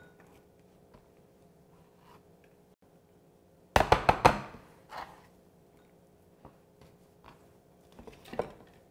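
Pampered Chef Quick Slice chopping snow peas: a quick burst of sharp clacks about four seconds in as the slicer is pressed down, then a few lighter taps.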